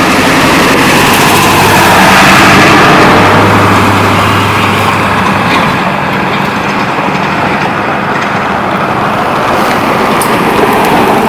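A motor vehicle with its engine running drives past at close range, loudest about two to three seconds in, then fading.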